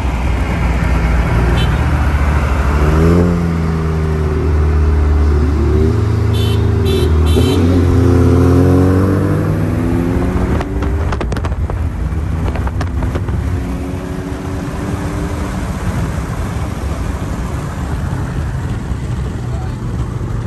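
Car engine accelerating hard, its pitch climbing and dropping back several times as it goes through the gears, then easing to a steadier drone with road and wind noise in the second half. Three short high beeps about six to seven seconds in.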